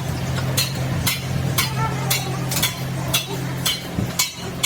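Hammer striking metal at a steady pace of about two blows a second, each with a short metallic ring, over the steady low hum of a running machine.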